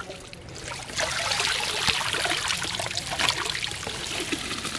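Water trickling and streaming out of a bamboo cage fish trap as it is lifted from the river, starting about a second in.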